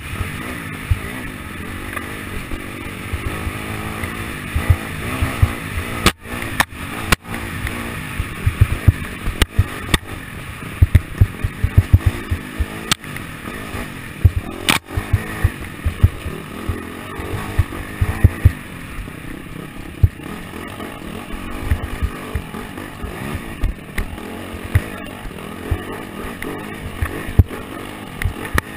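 AJP SPR 310 enduro bike's single-cylinder four-stroke engine running under load along a bumpy trail, heard from the bike with wind and jolts thumping on the microphone. Sharp knocks come several times, near six, seven, thirteen and fifteen seconds in.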